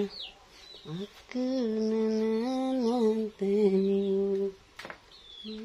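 A woman humming a slow tune in long held notes, broken by short pauses. A few short high chirps of small birds come at the start and near the end.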